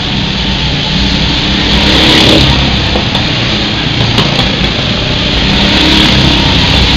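Go-kart engines running at speed as karts pass close by one after another. The noise swells as karts go past, about two seconds in and again near the end.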